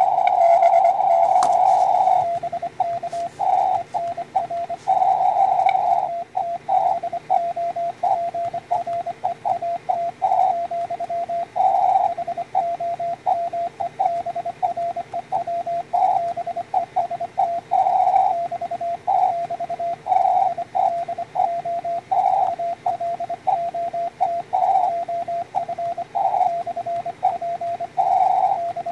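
Morse code (CW) tones of about 700 Hz from a customized SW20 QRP transceiver on 20 m. A long steady tone for the first two seconds, then a steady run of dits and dahs.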